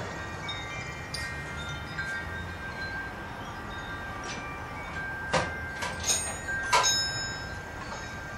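Scattered, chime-like ringing tones sounding and fading throughout, with a cluster of four sharp metal clinks about five to seven seconds in as small steel tools and the driveshaft are handled on the concrete floor.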